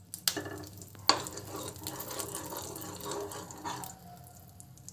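A metal spoon stirring and scraping lumps of ghee around a nonstick kadhai as the ghee melts, with a light sizzle. The spoon knocks sharply on the pan about a third of a second and about a second in, and the stirring quietens near the end.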